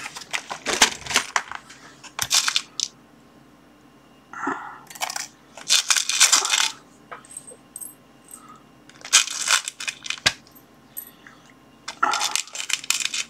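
Small metal screws clinking and rattling against each other and a plastic compartment organizer box as they are picked through by hand, in about five short bouts of jingling.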